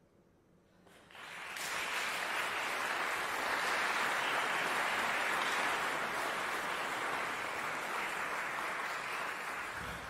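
Audience and jury applauding: the clapping starts about a second in, swells quickly to a steady level, and begins to die away near the end.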